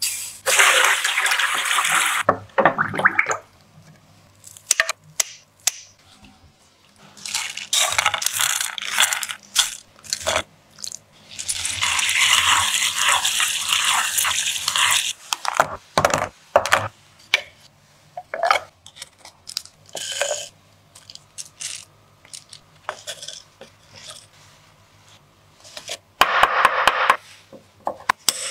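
Food-preparation handling sounds in several short takes: a pouring hiss over bamboo tubes in a plastic tub, a longer rasping hiss of chopsticks stirring dry glutinous rice and red beans in a wooden bowl, and scattered clicks and taps of the bamboo tubes and utensils being handled.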